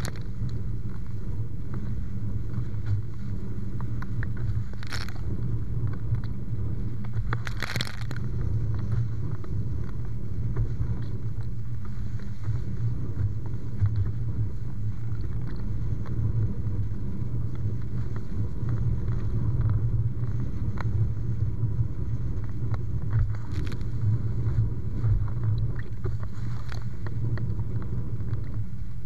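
Steady low rumble of wind and water rushing past a windfoil board under sail, with two short sharp hisses about five and eight seconds in.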